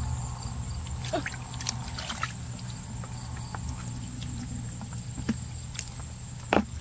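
Hands working a woven bamboo basket in wet mud: scattered small clicks, taps and knocks. Under them runs a steady low hum and a thin, constant high whine.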